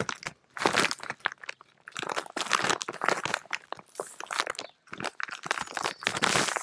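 Duct tape being pulled off the roll in several bursts of ripping noise, with crinkling of a laminated plastic shopping bag as the tape is pressed along its bottom edge.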